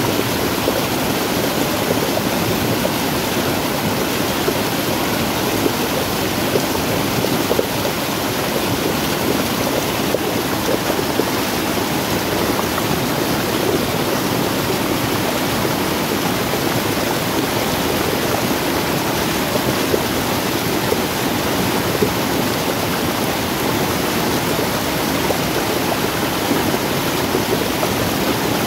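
Rain-swollen stream pouring down a small rocky drop: a steady, loud rush of water.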